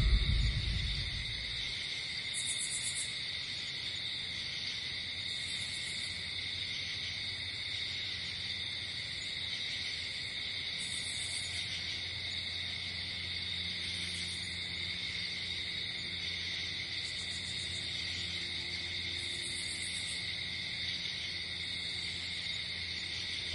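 Night insect chorus: crickets chirring steadily and high, with a higher, brief trill coming in every few seconds.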